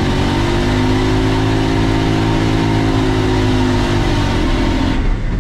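V8 engine of a BMW E36, heard from inside the cabin while driving, pulling at a steady, nearly level pitch; the steady note drops away about five seconds in.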